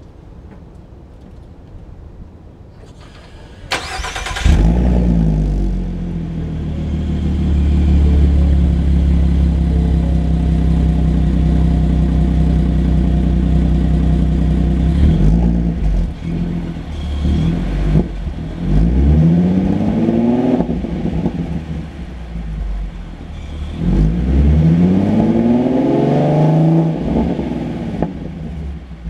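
2017 Ford Mustang's 3.7-litre V6 through a Roush axle-back exhaust, heard at the tailpipes: the engine starts about four seconds in and idles steadily, then is revved in several blips from about fifteen seconds on, the longest rev near the end.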